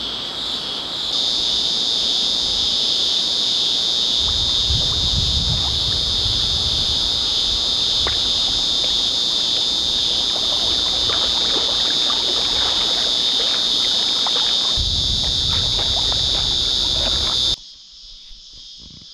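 Loud, steady high-pitched buzzing of a cicada chorus, with a low rumble and light water splashing from swimmers beneath it. It cuts off abruptly near the end.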